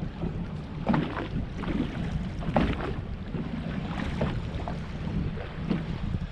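Strong wind blowing across the microphone, with water slapping against the hull of a small fishing boat in irregular splashes.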